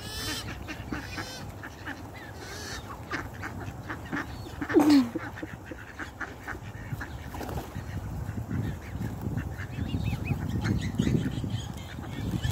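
A crowd of black swans and ducks feeding, with scattered calls and the clicks of pecking. One loud call nearly five seconds in drops in pitch.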